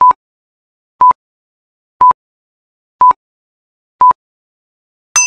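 Quiz countdown timer sound effect: five short beeps of one pitch, one a second, as the timer counts down from five. A bright, ringing ding follows near the end, signalling that time is up.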